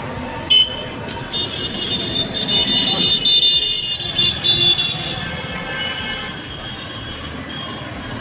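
Road traffic noise, with a short sharp sound about half a second in and a high-pitched tone, like a toot or horn, sounding for a few seconds in the middle.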